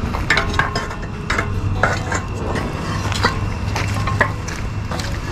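Irregular clanks and knocks, two or three a second, from cast iron pots and firewood being handled around a fire pit.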